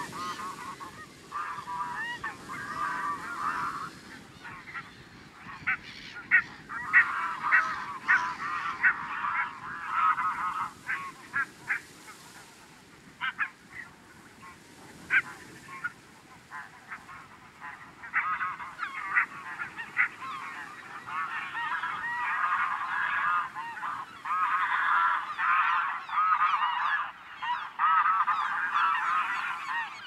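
A flock of barnacle geese calling: many short, high calls overlapping, with a few louder single calls standing out in the first half. The calling thins around the middle, then builds to a dense chorus toward the end.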